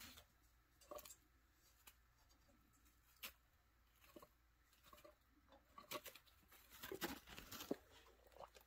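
Faint scattered clicks and light rustles from a chinchilla moving about its wire cage on wood-shaving bedding, busier in the last few seconds.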